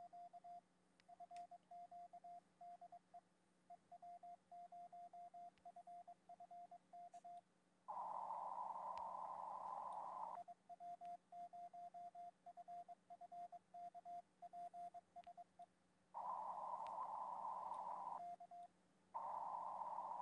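Morse code (CW) keyed by a ham radio transceiver, heard over the station's remote audio stream as a single steady beep switched on and off: a CQ call, then 'DE IW0FFK', then a short 'K' near the end. Between the sends, receiver hiss comes up for a couple of seconds at a time.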